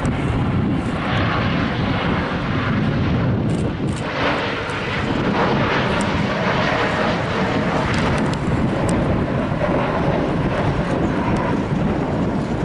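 Jet airliner engines, a loud, steady rushing noise as the plane flies low overhead.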